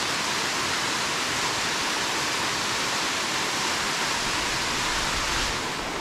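Waterfall rushing: a steady, even rush of falling water that eases slightly near the end.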